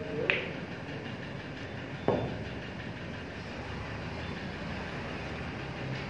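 Snooker balls: a sharp click as the cue ball strikes another ball about a third of a second in, then a duller knock about two seconds in as a ball hits the cushion, over a steady low hum of the hall.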